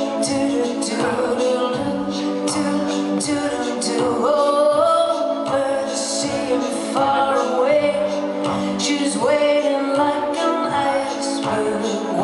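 Live concert recording of a woman singing a song over instrumental accompaniment with a steady beat; her sung notes slide up in pitch several times.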